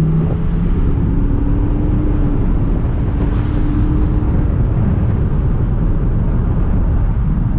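A 2021 Ford F-150's 5.0 Coyote V8, heard from inside the cab while the truck accelerates under the 10-speed automatic, over steady tyre and road rumble. The engine note drops once just after the start, like an upshift, then climbs again and sinks under the road noise about four and a half seconds in.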